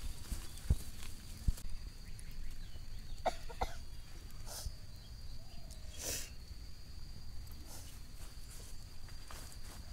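Rustling and light knocks and clicks of hands working among dry leaves while baiting a fishing hook, with a few sharp knocks about a second in and a steady faint high whine underneath.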